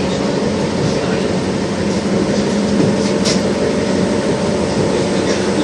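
LVS-86K tram running along the track, heard from inside the car: a steady drone of the traction motors and wheels on the rails, with one short click about three seconds in.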